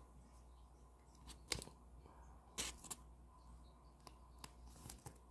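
Faint handling sounds of football trading cards being picked up and set down, a few short sharp clicks standing out about one and a half, two and a half and three seconds in, against near silence.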